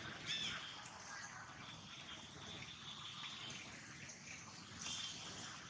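Faint outdoor background noise, with a brief high-pitched call shortly after the start and another faint high call near the end.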